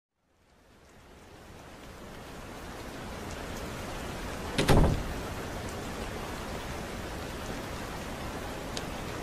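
Steady rain ambience fading in over the first few seconds, with one sudden loud thump about halfway through.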